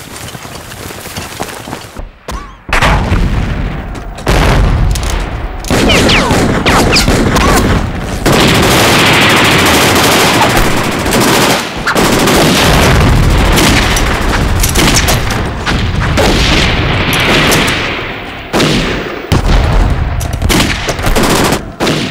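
Battle gunfire from a war-drama soundtrack: many rifle and pistol shots overlapping with heavy booms. It starts about three seconds in and keeps going almost without a break.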